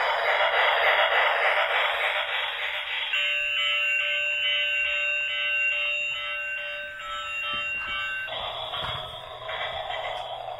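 Battery-operated toy Christmas train's built-in sound chip through its tiny speaker, thin and tinny: a hissing chug-chug steam sound, then about three seconds in a beeping electronic tune that plays for some five seconds, and the chugging hiss again near the end.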